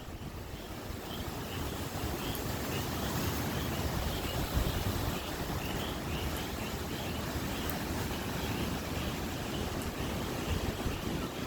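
Gusty wind buffeting the microphone, a fluttering low rumble over a steady wash of surf. Faint high chirps repeat throughout.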